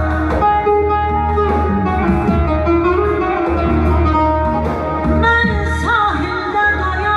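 A woman singing into a handheld microphone over instrumental backing music with a steady, pulsing bass; her voice swoops in pitch about two-thirds of the way through.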